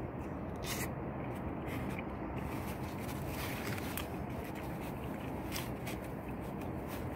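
Close-up chewing of a bite of toasted quesadilla, with irregular crisp crunches and crackles at the mouth. Under it runs a steady low rushing noise.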